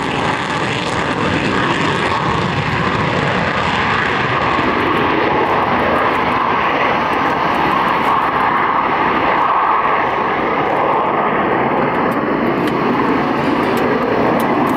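Panavia Tornado's twin RB199 afterburning turbofans at full reheat on take-off: a loud, steady jet roar that loses its hiss after a few seconds as the jet climbs away.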